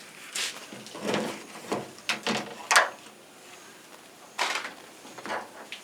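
Irregular plastic knocks, clicks and scrapes as the washing machine's controller circuit board is handled and pulled out of the control panel, with one sharp knock near the middle.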